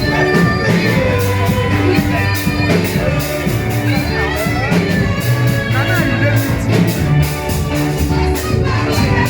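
Church praise music during the offering: a band with a steady drum beat and bass, with voices singing.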